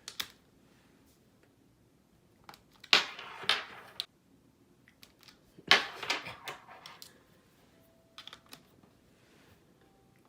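Short clattering clicks and scuffs in about four bouts a few seconds apart: a plug and its cord knocking about at a wall socket as a cat paws it away.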